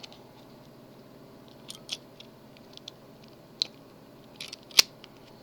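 Scattered sharp metallic clicks and taps of a Master Lock padlock and its key being handled, about half a dozen in all, the loudest one near the end.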